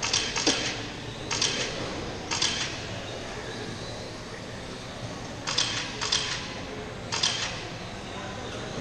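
Radio-controlled Formula 1 race cars running on an indoor carpet track: short hissing bursts come and go irregularly, several in a row, over a steady background hum from the hall.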